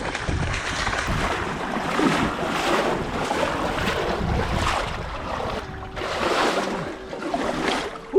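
Floodwater rushing and splashing around a stand-up paddleboard, with wind buffeting the action camera's microphone; the noise swells and eases.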